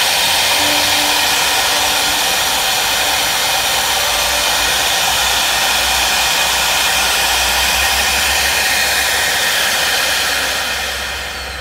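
Spindle motor of an Acctek AKM2030 multi-spindle CNC wood router running at high speed while its bit mills a wood panel: a steady high whine over a loud rush. A low hum joins about four seconds in, and the sound falls away near the end.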